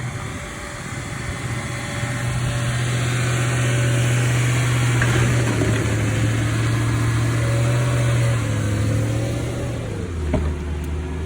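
A car engine running at low, steady revs while the car is driven slowly. Its note drops about two-thirds of the way through and again near the end, where a single knock is heard.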